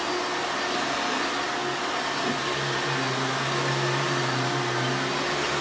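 Hoover Runabout Supreme upright vacuum cleaner running steadily, a constant motor noise with a low hum that grows a little stronger about halfway through.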